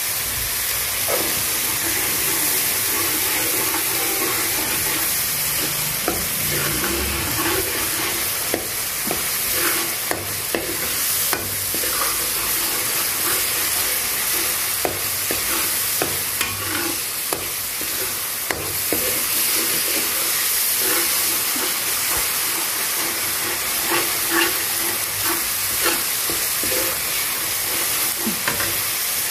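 Masala paste sizzling in oil in a non-stick frying pan, with a metal spatula scraping and tapping against the pan again and again as it is stirred.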